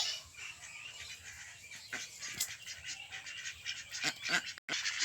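A flock of ducks quacking, with scattered short calls overlapping one another; the sound drops out for an instant near the end.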